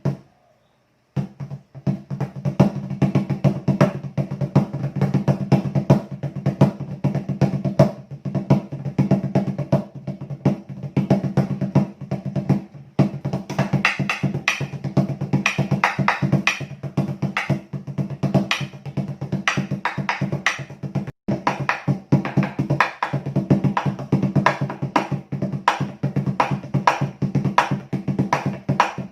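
A homemade floor tom built from scrap materials being drummed in a fast, continuous run of strokes with a low, ringing pitch.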